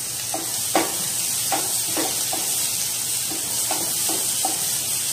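Onions, green chillies and tomato chunks sizzling in olive oil in a non-stick frying pan, a steady high hiss, with irregular soft knocks of a wooden spatula against the pan, the loudest one under a second in.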